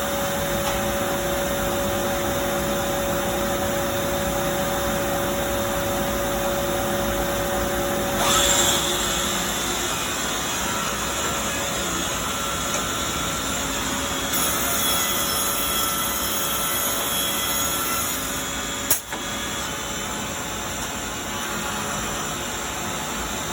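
Holz-Her Evolution vertical CNC machining a wooden drawer side, its spindle and dust extraction running steadily while it drills dowel holes and cuts the drawer-bottom groove. The machine's sound changes about 8 seconds in, a high whine runs from about 14 to 18 seconds, and a single sharp knock comes about 19 seconds in.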